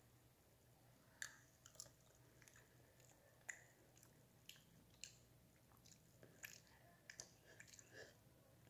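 Faint close-up eating sounds: a child chewing a spoonful of food, with about a dozen sharp mouth clicks and smacks at irregular moments.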